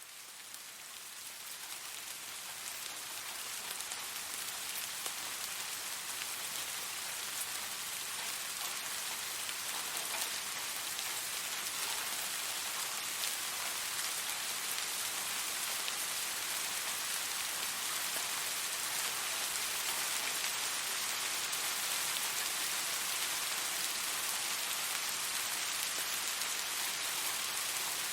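Steady rain: a dense hiss of falling drops with fine ticks of single drops through it. It fades in over the first few seconds, then holds steady.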